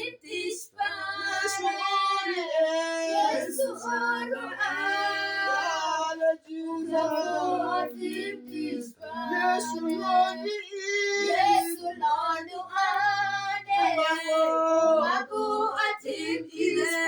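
High voices singing a repeated gospel chorus to Jesus, with long held notes that glide between pitches.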